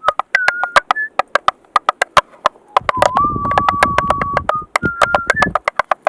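Tap shoes striking a hard floor in quick, syncopated runs of crisp taps. A single steady tone is held over them and steps up in pitch a few times, with a low rumbling noise under the taps from about three seconds in until after five.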